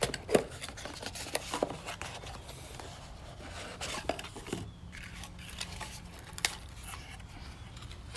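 Small parts being handled by hand: scattered light clicks, taps and rubbing, with a sharper knock about a third of a second in and another near six and a half seconds.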